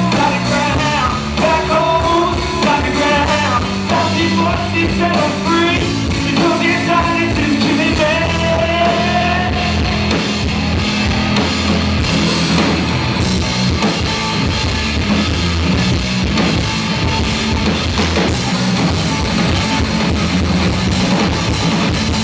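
Live rock band, a guitar-and-drums duo, playing loud with singing, electric guitar and drum kit, heavily distorted in the recording. The sung line shows mainly in the first half, with the band playing on after it.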